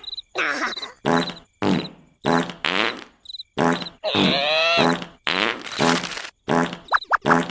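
Wordless cartoon vocal noises from Larva characters: about a dozen short pitched grunts and squeaks with brief silences between, and one longer wavering sound near the middle.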